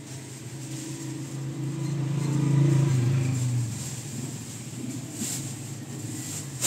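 A motor vehicle's engine, its low hum swelling to a peak about two and a half seconds in and fading away by about four seconds, as of a vehicle passing close by.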